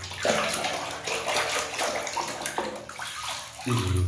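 Water splashing and sloshing in a plastic basin as a hand scrubs a plastic toy truck under the water.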